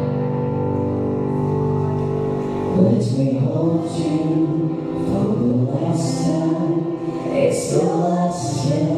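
Live acoustic band music: a chord held for about three seconds, then voices singing over acoustic guitar, upright double bass and keyboard.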